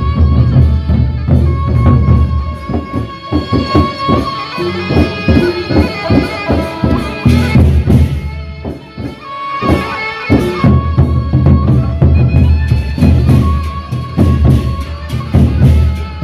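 Sasak gendang beleq ensemble playing: large double-headed barrel drums beaten with sticks in a fast, dense rhythm, with a held high tone running over the drumming.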